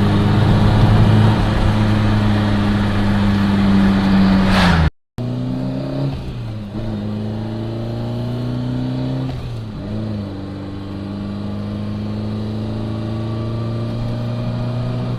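BMW E30 M3's S14 four-cylinder engine running on the road: a steady, loud note for about five seconds. After a sudden break, the revs climb and dip twice as it pulls through the gears, then hold steady.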